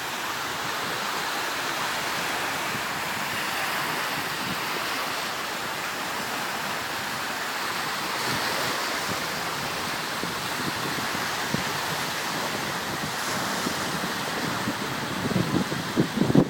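Small waves breaking and washing up the beach in a steady hiss of surf. Wind buffets the microphone near the end.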